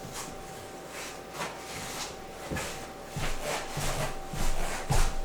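Irregular light knocks and rustling of objects being handled, getting louder in the last couple of seconds, over a faint steady tone.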